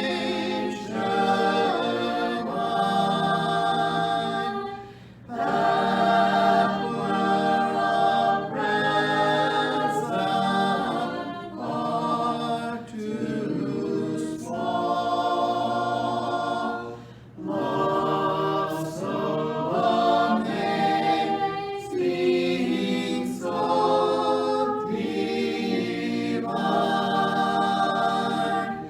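A cappella choir singing a slow hymn, voices without instruments, in long phrases with short breaks between them.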